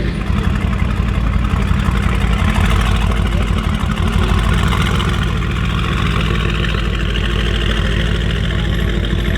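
Mercedes-AMG GT R Pro's twin-turbo 4.0-litre V8 with a straight-pipe exhaust, running steadily at idle or low revs.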